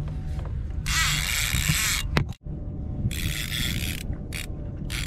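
Conventional fishing reel (Shimano Torium 20HG) buzzing with a fast ratchet-like clicking as the drag gives line to a hooked cobia: two runs of about a second each, then a few short bursts, over low wind and water rumble.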